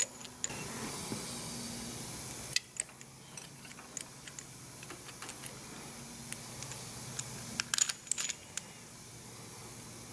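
Light metallic clicks and clinks of rocker levers and pushrods being handled and seated on a Cummins 8.3L diesel cylinder head, with a cluster of sharper clicks about eight seconds in. A steady hiss sounds for the first couple of seconds and cuts off suddenly.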